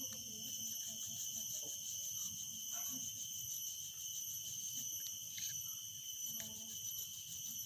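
Cloth rubbing on an angle grinder armature's commutator to clean the black off the segments, a faint scuffing. A steady high-pitched chirring of insects runs over it.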